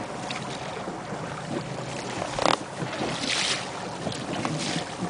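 Wind buffeting the microphone over open sea, with water lapping and splashing against the side of an inflatable boat. Two short, louder rushes of noise come near the middle.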